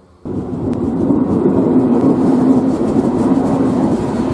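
Diesel locomotive passing close by, its engine running loud and steady, with clicking from the wheels on the rails. The sound cuts in abruptly just after the start.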